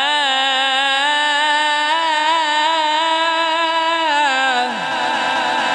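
Quran recitation in melodic tajweed style: a single unaccompanied voice holds one long ornamented vowel with a wavering pitch that climbs slightly, then slides down about four and a half seconds in.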